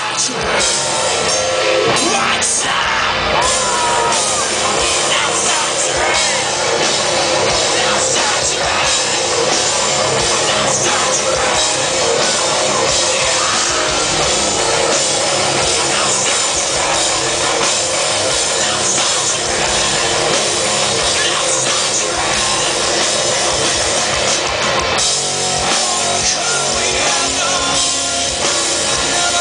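Heavy rock band playing live: distorted electric guitar and drum kit, with sung vocals, heard from the audience.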